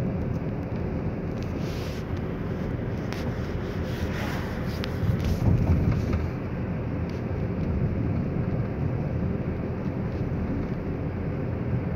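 Steady road and engine noise inside a moving car's cabin, swelling briefly about five seconds in.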